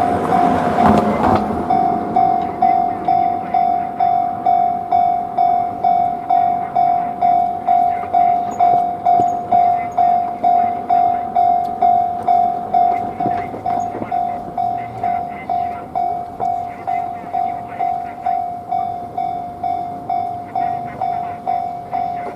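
Japanese railway level-crossing warning bell ringing 'kan-kan', about two strokes a second, each stroke a single ringing tone that dies away before the next. A brief rush of noise sounds in the first second or so.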